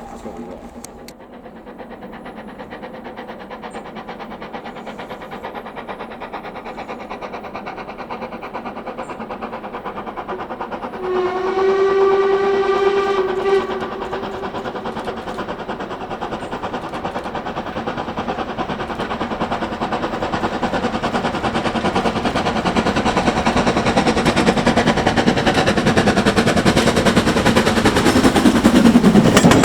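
Steam locomotive approaching: it sounds one whistle blast of about two and a half seconds roughly eleven seconds in, and its running sound grows steadily louder, dropping in pitch near the end as it passes close by.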